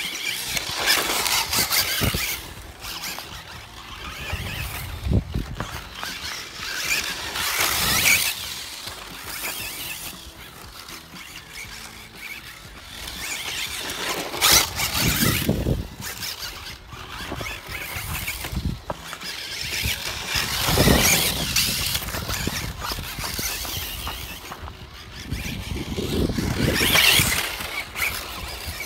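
Kyosho Optima electric four-wheel-drive RC buggy running on a dirt track: the motor and gears whine and the tyres scrabble over loose dirt and gravel. The sound swells and fades about every six seconds, five times, as the buggy laps close by.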